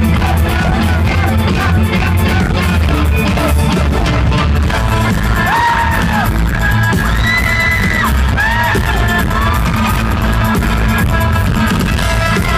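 A live rock band playing loudly through an arena PA, heard from the crowd on the floor: electric guitars over bass and drums. Arching pitched voice-like glides rise over the band about halfway through.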